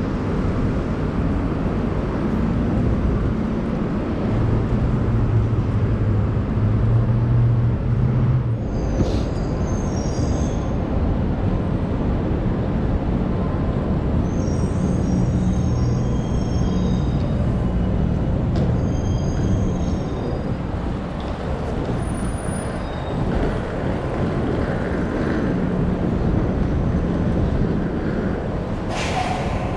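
City street traffic: vehicle engines run in a steady rumble, with a low hum. High-pitched squeals come about nine seconds in and again from about fourteen to twenty seconds. A short burst of hiss comes near the end.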